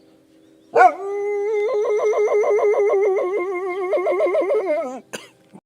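A dog howling: one long, wavering howl lasting about four seconds, its pitch dropping at the end. A brief click follows.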